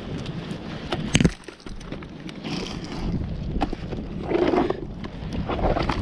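Wind buffeting the microphone, with rustling and knocks as fish are picked from a gill net and dropped into a bucket of fish. A sharp knock about a second in is the loudest sound.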